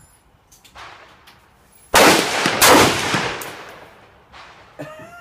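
A single rifle shot from a PSL54C firing 7.62x54R surplus ammunition, a sharp crack about two seconds in. A second loud report follows less than a second later, and the sound tails off over about two seconds.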